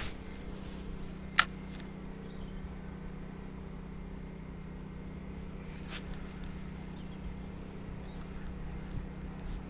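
A steady low mechanical hum throughout, with one sharp, loud click about a second and a half in and a fainter click about six seconds in.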